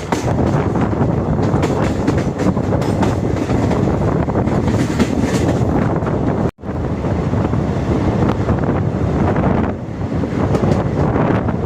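A moving train's wheels running on the rails, a steady loud noise with wind buffeting the microphone. It cuts out for an instant about halfway through.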